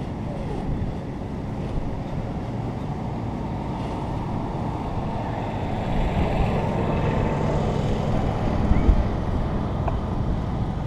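Wind buffeting the microphone as a steady low rumble, growing stronger in the second half with a few louder gusts.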